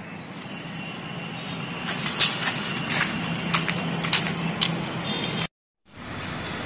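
Outdoor background noise: a steady faint low hum with scattered light clicks and taps, broken by a half-second of silence about five and a half seconds in.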